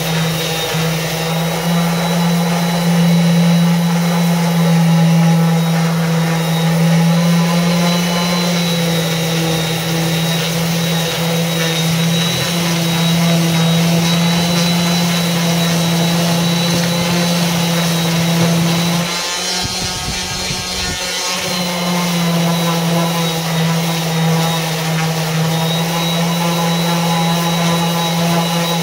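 Electric random orbital sander running steadily against a wooden board, a continuous motor hum with a sanding rasp. For about two seconds, roughly two-thirds of the way through, the hum falters and changes before settling back.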